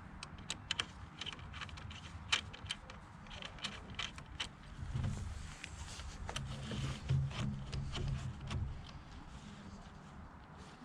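Irregular light metallic clicks and taps of hand tools working on a motorcycle's steering head during reassembly. A low hum swells for a few seconds in the middle.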